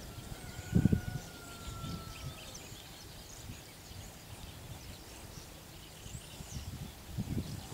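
Cows grazing, with irregular low tearing and munching sounds as they crop the grass and a louder thump about a second in. Small birds chirp faintly in the background.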